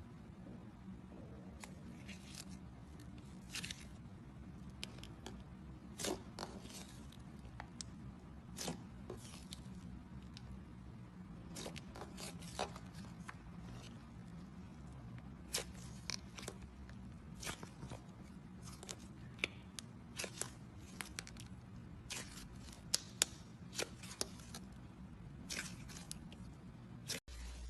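Slime being handled: irregular crisp crackles and pops, with a steady low hum underneath.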